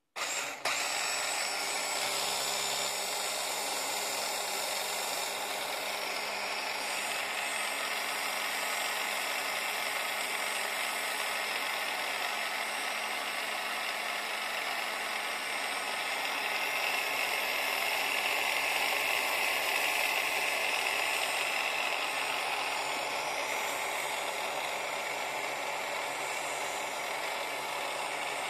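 Small electric motor of a Scalextric Ford Cosworth slot car, run straight off a 9-volt battery, whirring steadily with its wheels spinning freely in the air. It starts abruptly as the car's pickups touch the battery terminals, and grows a little louder past the middle.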